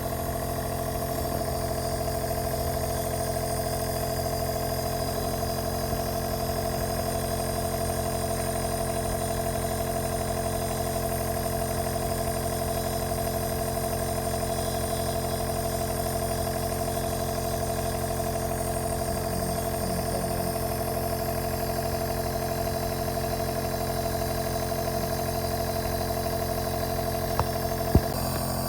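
Compressor nebulizer running with a steady mechanical hum. Two sharp clicks come near the end.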